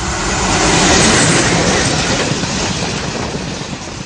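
A train passing close by: loud rail and wheel noise that swells to a peak about a second in, then slowly fades away.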